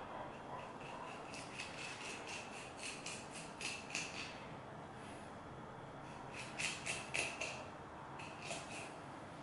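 Kitchen knife cutting along a mahi-mahi's back, a run of short rasping strokes as the blade slices through the skin and along the backbone, in three bursts.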